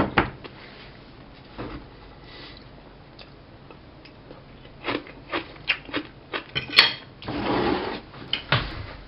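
A fork and a plastic tub of sauerkraut handled on a tile tabletop: scattered light clicks and knocks, thickening into a quick run of them about five seconds in, with a short rustling scrape near the end.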